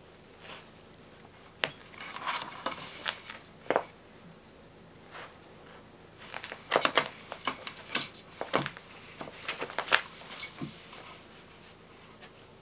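Cat biting, clawing and kicking a fabric kicker toy stuffed with silvervine on a slatted board: irregular scratching and rustling with sharp clicks of claws, in two spells, one starting about one and a half seconds in and a longer one from about six to eleven seconds.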